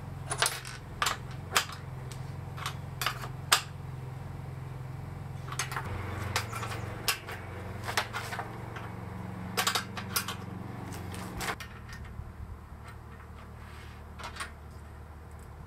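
Irregular small metal clinks and clicks of nuts, screws and a spanner being handled against aluminium solar-panel mounting brackets and frame, thinning out near the end, over a steady low hum.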